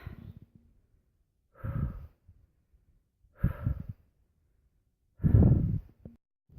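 A man breathing hard close to the microphone, catching his breath after a long hike uphill: four heavy breaths about every second and a half to two seconds, the last one the loudest.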